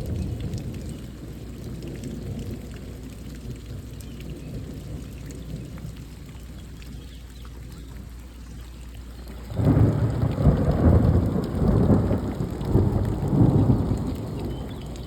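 Steady rain with thunder: a low rumble dies away at the start, then a loud thunderclap breaks about ten seconds in and rolls in waves for about four seconds before fading.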